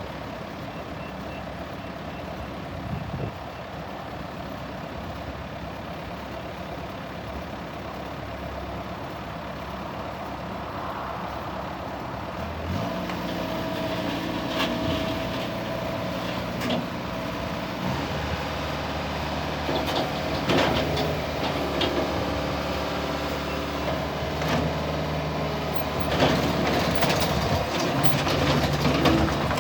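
Bobcat T190 compact track loader's diesel engine running steadily, then speeding up about a third of the way in, with repeated knocks and clanks of the machine working through the second half.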